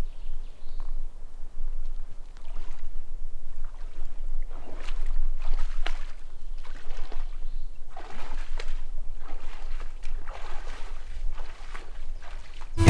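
Shallow water sloshing and splashing in irregular strokes as Highland cattle wade through a pond.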